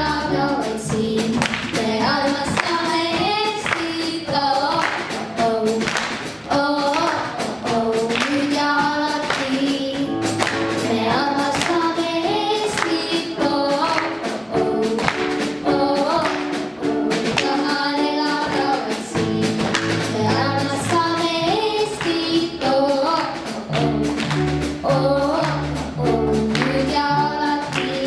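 A girl sings a pop song into a microphone over a live band of electric bass guitar and drum kit, with a chorus of children's voices singing along.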